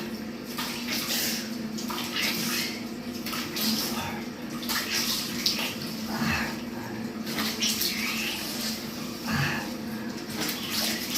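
Running tap water and hands splashing water onto the face at a sink, rinsing off facial cleanser, in uneven splashes over a steady low hum.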